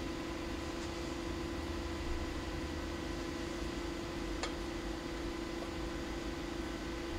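Small battery-powered plasma ball running, a steady electrical buzz with one fairly low pitch and fainter higher overtones over a hiss. A faint tick comes about four and a half seconds in.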